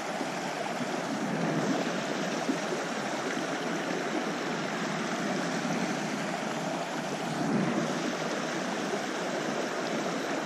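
Small, shallow, rocky creek running steadily over a riffle of stones: an even rush of water.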